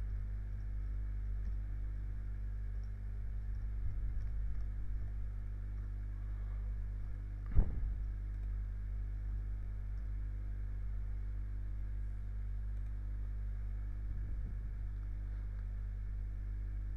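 Steady low electrical hum with no speech, and one brief louder sound about halfway through.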